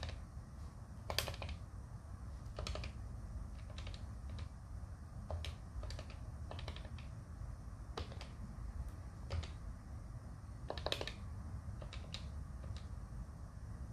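Number-pad keys on a Polycom VVX 411 desk phone being pressed one at a time to type a domain name letter by letter: a string of short, irregular plastic clicks, some in quick pairs.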